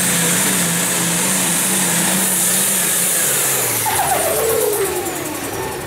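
Allis-Chalmers 200 pulling tractor's engine running at high revs under a loud high hiss. About four seconds in the revs fall away with a falling whine.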